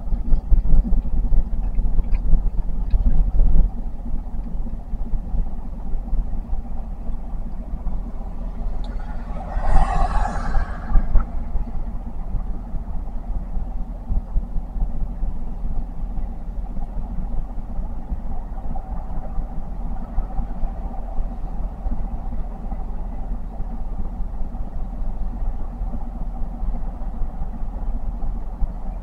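Vehicle engine idling, a steady low rumble heard from inside the cab, with a brief louder rush of noise about ten seconds in.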